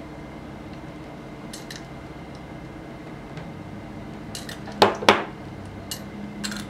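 Light metallic clicks from a carburetor float bowl and tool being handled, then two sharp metal clacks about five seconds in as a steel multi-tool is set down on a wooden table.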